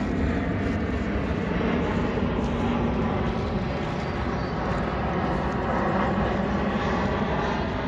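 Jet airliner flying low overhead, its engines making a steady, dense rumble with no break.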